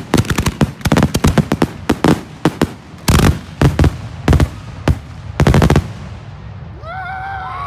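Fireworks salutes going off in a rapid finale barrage: volleys of sharp, loud cracks in quick clusters, ending about six seconds in.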